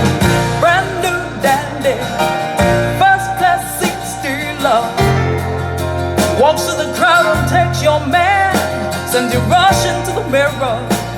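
A recorded song playing: a wavering melody line, likely a voice, over guitar and deep held bass notes.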